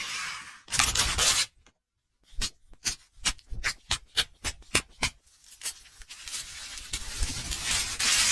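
Food-preparation sounds: a short hiss, then about a dozen quick sharp strokes, some four a second, then a steady hiss that grows toward the end.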